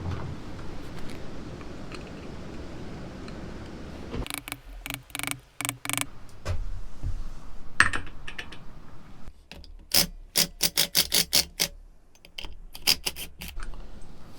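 Hand tools and engine parts being handled during a teardown: scattered clicks and knocks, then a quick run of about ten clicks at roughly four or five a second, and a few more near the end.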